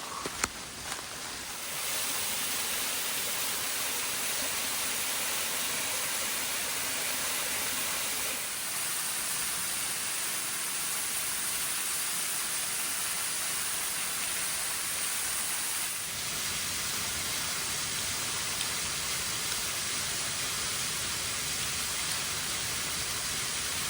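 Waterfall pouring with a steady rushing hiss. A few faint clicks come just before it starts, and its tone shifts slightly twice, as between shots of the falls.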